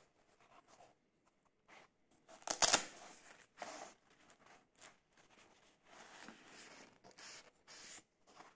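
Handling noise from a cloth whistle pouch being opened and a whistle drawn out: short rustles and scrapes of fabric, with a louder tearing rasp about two and a half seconds in.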